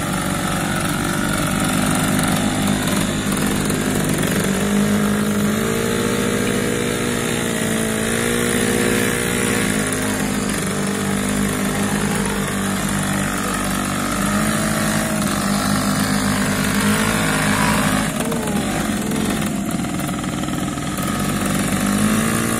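Motorcycle engine running, its revs rising and falling several times.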